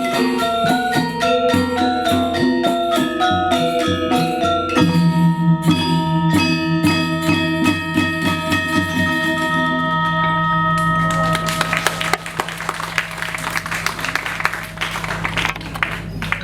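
Balinese gamelan playing fast, interlocking metallophone figures, then a final stroke about five seconds in, with a low gong and metallophones ringing out together. Audience applause begins about eleven seconds in as the ringing fades.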